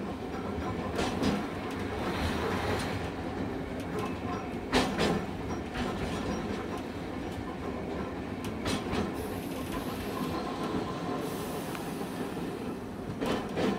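Hankai Tramway streetcar running along the track with a steady rumble, its wheels knocking over rail joints four times, about every four seconds.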